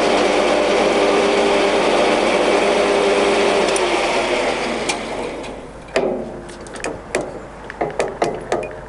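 Scott TY-C0632 single-phase gap bed centre lathe running in high range at 755 rpm, its headstock gearing and motor giving a steady whine. It winds down about five seconds in, followed by a run of sharp clicks and knocks.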